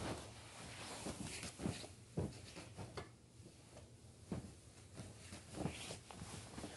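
Irregular small clicks, knocks and rustles of objects being handled at close range.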